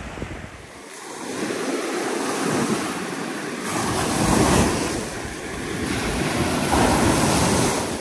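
Black Sea surf breaking and washing up the beach, swelling and easing three times, with wind on the microphone.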